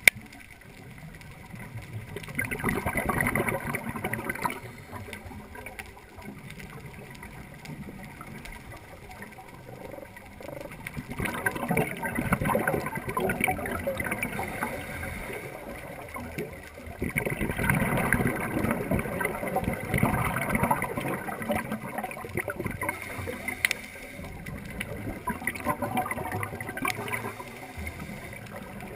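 Scuba regulator exhalation bubbles heard underwater: three long gurgling rushes of bubbles, each a few seconds long, between quieter stretches of low steady underwater hiss.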